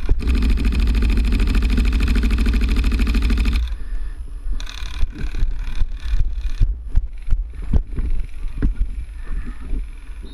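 Airsoft electric gun, a Tokyo Marui HK416D Recoil Shock AEG, firing one long full-auto burst of about three and a half seconds that cuts off abruptly. It is followed by scattered knocks and rustling.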